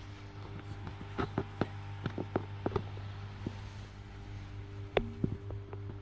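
A steady low hum with scattered light clicks and knocks, as from a phone being handled and moved about.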